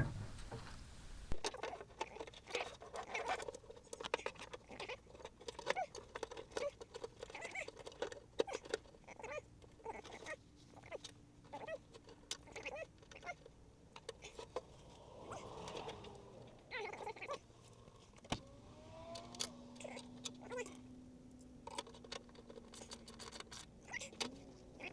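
Scattered light clicks, taps and rustles of hands working car wiring, cable and plastic plugs. A steady low hum comes in about two-thirds of the way through.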